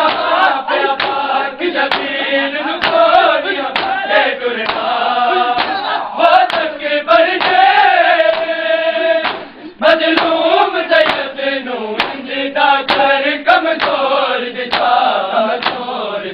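Men's voices chanting a Punjabi noha in chorus, with sharp, regular strikes keeping time throughout, typical of the hand-on-chest beating of matam.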